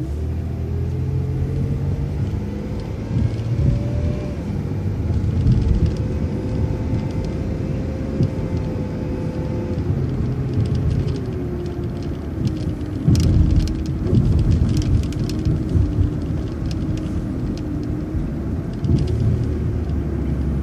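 City transit bus driving, heard from on board: a steady engine and road rumble with a whine that climbs in pitch over the first few seconds, then steps down in pitch a few times. A short patch of knocks and rattles comes about two-thirds of the way through.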